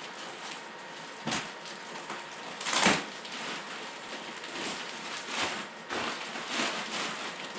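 Packaging being handled and pulled off a new car bumper: irregular rustling and crinkling with two sharper knocks, about a second and a half in and about three seconds in.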